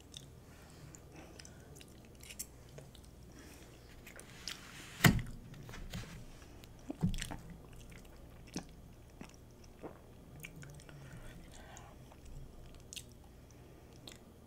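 A person chewing a mouthful of chili cheese fries with jalapeños close to the microphone, with scattered small clicks. A sharp knock about five seconds in is the loudest sound, and a lighter one follows about two seconds later.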